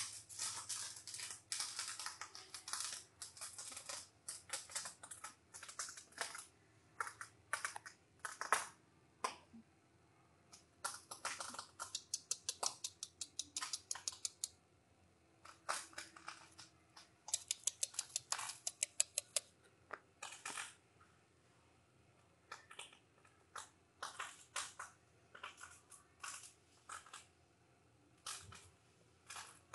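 Siberian husky puppies' claws clicking and scrabbling on a concrete floor as they play, in irregular flurries of sharp clicks with short pauses, and a quick run of rapid clicks a little past the middle.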